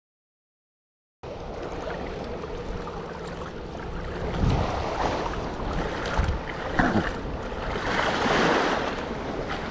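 Small waves washing and lapping at a muddy sea shore, with wind buffeting the microphone and a few dull knocks, after about a second of dead silence at the start.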